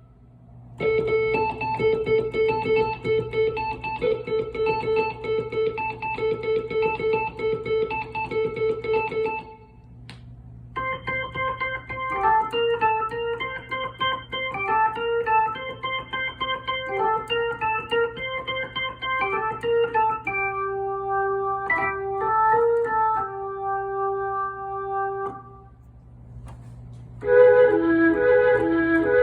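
Nord Electro 3 stage keyboard played in four short passages on different patches, organ- and electric-piano-like tones, with brief pauses between them as the sound changes. A steady low hum runs underneath.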